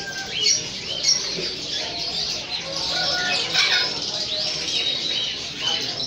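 Many caged budgerigars chirping and chattering at once, a dense stream of short, quick chirps with a few brief flutters mixed in.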